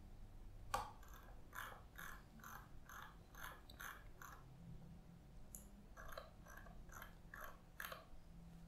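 Faint, regular ticking of a computer mouse, about two or three ticks a second, in two runs: one from just under a second in to about four seconds, the other from about five and a half to eight seconds in.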